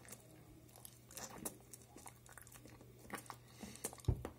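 A person chewing a mouthful of a coffee-soaked seeded bread roll with banana: faint, scattered wet smacks and small clicks of the mouth, with a soft low thump near the end.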